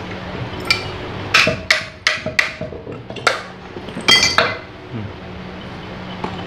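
Metal parts of a gondola hoist's gearbox clinking and knocking as they are handled, about a dozen sharp metallic strikes with a short ring. The strikes come in a quick cluster between about one and two and a half seconds in, and the loudest ones come around four seconds in.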